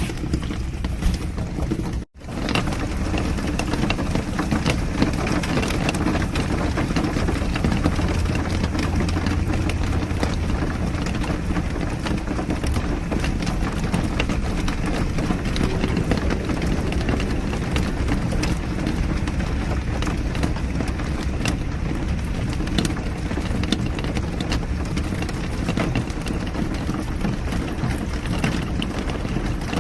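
A car driving in the rain: a steady low rumble of engine and road, with raindrops ticking on the car. The sound cuts out abruptly for a moment about two seconds in, then resumes.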